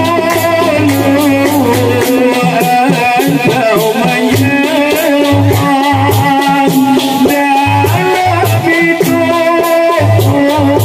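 Dikir barat music: a lead singer on a microphone sings a wavering melody with a male chorus, over frame drums beating a repeating pattern and a steady rattle of hand percussion.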